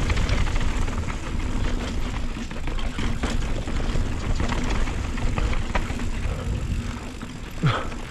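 Wind buffeting a chin-mounted action camera's microphone as a full-suspension mountain bike rattles fast down a rocky downhill trail, with constant clicks and knocks of tyres and bike over the rocks. Near the end comes a short falling grunt from the rider.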